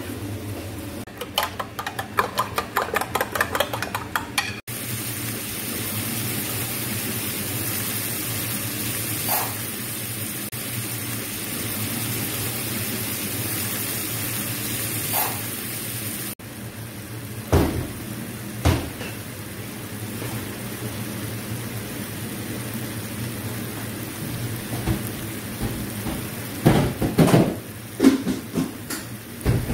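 Kitchen cooking sounds: a quick run of clicks near the start, then a steady sizzle of chopped tomatoes frying in oil in an aluminium pan. A few knocks of a utensil against the pan come later, several of them close together near the end.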